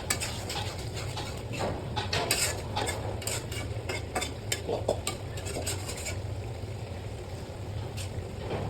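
A metal spoon or spatula stirring and scraping in a cooking pot, clinking quickly for the first six seconds or so and then slowing, over a steady low hum.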